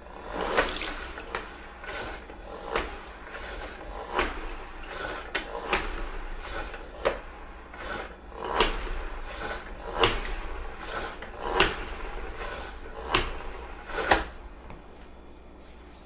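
O-Cedar EasyWring spin-mop bucket's foot pedal pumped about ten times, roughly once every second and a half. Each press gives a plastic clack and a swishing whirr as the wet microfiber mop head spins in the wringer basket, flinging out excess water. The pumping stops a couple of seconds before the end.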